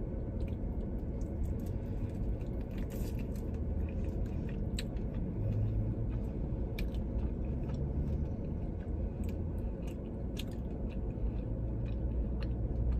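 A person chewing and biting into a chicken wing, with scattered sharp clicks from the mouth, over a low steady hum.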